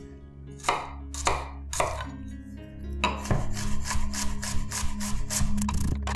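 Chef's knife chopping an onion on a wooden cutting board: three separate cuts about half a second apart, then from about three seconds in a fast run of quick chopping strokes.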